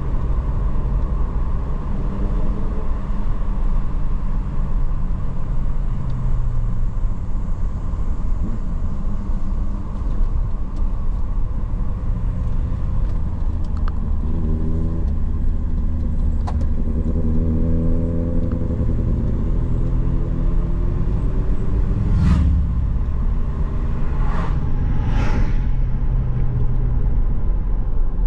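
Vehicle engine and road noise from inside a moving vehicle. The engine note rises and falls as it slows and speeds up, and three short sharp noises come near the end.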